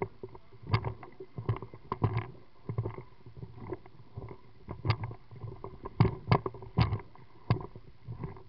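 Water splashing and slapping against a one-man inflatable pontoon boat on the river: a string of irregular splashes and knocks over a low steady wash.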